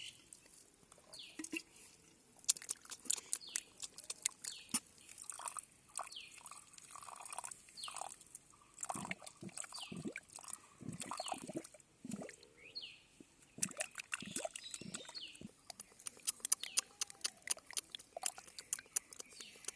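Wet mud and water being stirred and splashed by hand, with irregular short squelches, drips and clicks.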